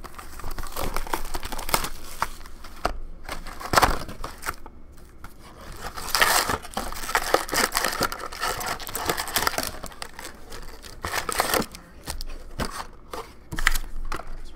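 Plastic shrink wrap crinkling and tearing as it is stripped from a box of hockey cards, then foil card packs rustling as the stack is lifted out and set down, with many small clicks and crackles.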